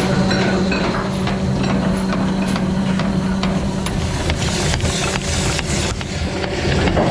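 Anchor windlass hauling in anchor chain: a steady motor hum, with the chain clanking link by link over the gypsy and down the hawse pipe into the chain locker. In the second half the clanks come about three times a second.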